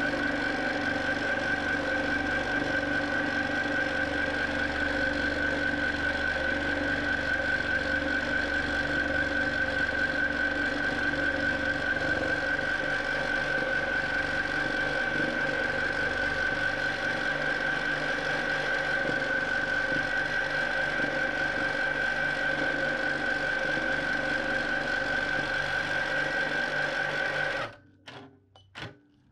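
Q'nique 19 longarm quilting machine stitching free-motion at a steady speed, a constant running noise with a high whine over it. It stops suddenly near the end, followed by a few clicks.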